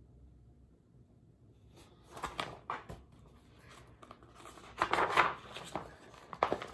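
Paper pages of a large picture book being turned by hand, rustling and flapping in three short spells: about two seconds in, around five seconds in, and again near the end.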